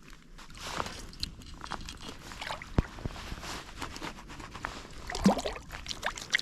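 Handling noises aboard a fishing kayak: scattered knocks, rubbing and water sloshing, with one sharp knock about three seconds in.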